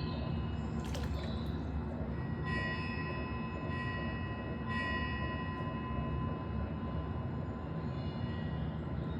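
Meditation soundtrack of steady white noise. Bell-like ringing tones sound over it several times, each held for about a second, and there is one sharp click about a second in.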